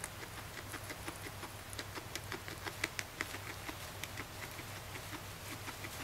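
Guinea pig chewing dry hay: a quick, crisp crunching of about five bites a second, loudest around the middle.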